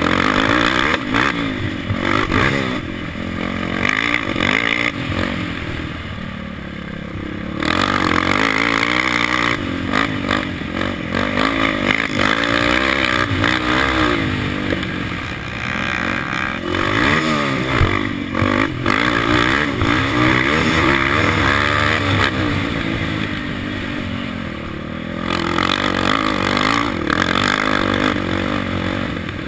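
KTM 525 quad's single-cylinder four-stroke engine revving hard up and down at race pace, easing off twice, about a fifth and about three quarters of the way through. Knocks and clatter of the chassis over the rough dirt track come through the engine sound.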